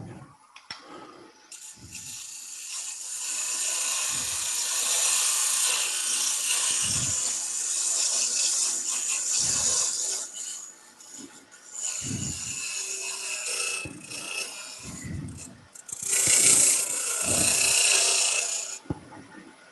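Wood lathe running, with a turning tool cutting the spinning wooden pepper-grinder blank in stretches of a few seconds, each a rough scraping hiss. The cuts stop and start again several times, with a few low knocks between them.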